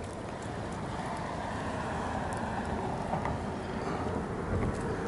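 Steady wind rumbling on the camera microphone over open water, slowly growing louder.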